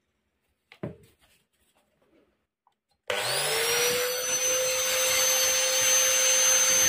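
Hand angle grinder fitted with a worn ceramic-cutting disc, switched on about three seconds in inside an empty plastic-jar corn grinder: its whine rises quickly to a steady high pitch and it runs on steadily, a trial run to check the disc spins clear of the bolts. A short knock comes just before, about a second in.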